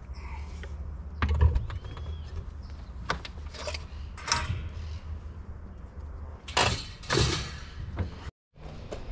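Metal clanks and scrapes from the steel drum of a homemade waste gasifier as its lid and lever are worked: a string of separate knocks and short scraping noises over a steady low rumble.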